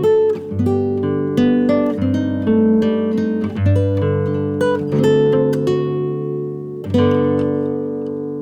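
Background music: acoustic guitar picking a slow melody, ending on a chord about seven seconds in that rings out and fades.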